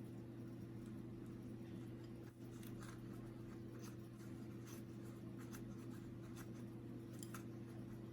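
Faint scattered clicks and light scraping of plastic printer parts being handled as the pressure roller is worked out of an HP LaserJet P1102's fuser unit, over a steady low hum.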